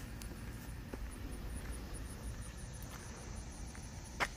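Outdoor summer ambience: an insect chirping very high in a fast, even pulse of about four chirps a second over a steady low rumble, with one sharp click near the end.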